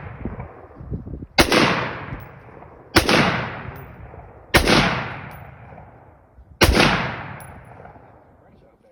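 Four single shots from an AR pistol, fired at an uneven pace about one and a half to two seconds apart, each loud crack followed by a long echo dying away.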